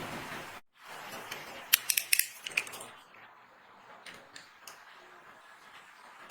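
Dry soap being cut, with crisp cracks and crunches, a loud cluster about two seconds in, then quieter scattered ticks as it crumbles. A steady hiss runs for the first half second, then stops.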